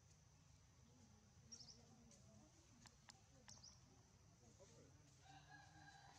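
Near silence outdoors: faint background hum, two brief high chirps and a couple of faint ticks. Near the end there is a faint, even-pitched animal call lasting about a second.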